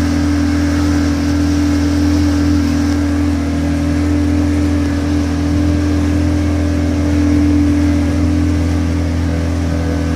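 Small boat's outboard motor running steadily, its engine note holding even throughout.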